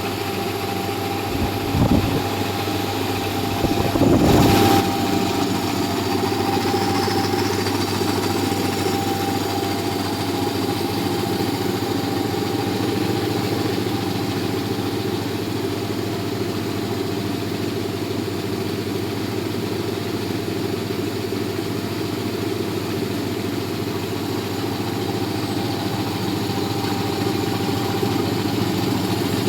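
1 HP twin-piston air compressor running steadily, with a constant hum and a steady mid-pitched tone. Two brief louder noises come about two and four and a half seconds in.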